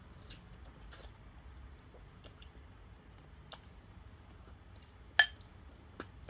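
Soft wet eating sounds of ramen noodles being slurped and chewed, a few small scattered clicks. About five seconds in, one sharp ringing clink as the metal fork strikes the ceramic bowl, with a smaller click a moment later.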